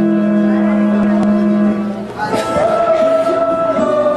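Backing music of long held notes, moving to new notes about two seconds in after a brief dip.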